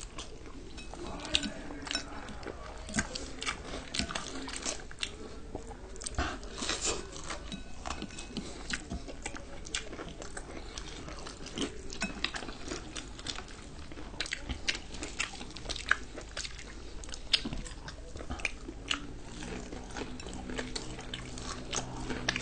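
Close-up eating sounds from fried chicken and noodles: biting, chewing and lip smacking, with many short crisp clicks and crunches scattered throughout.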